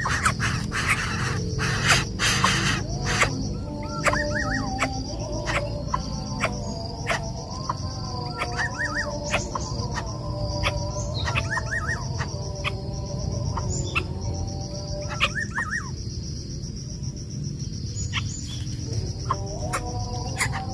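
Steady high-pitched insect drone, with groups of three or four quick rising bird chirps every few seconds and scattered sharp clicks.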